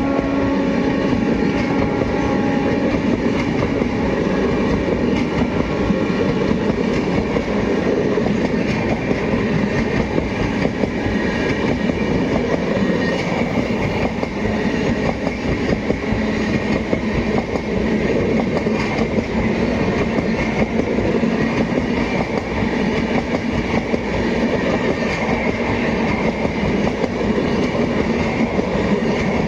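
Indian Railways express train running past at speed: a steady, loud noise of the coaches and their wheels on the track that keeps on without a break. The end of a train horn dies away in the first couple of seconds.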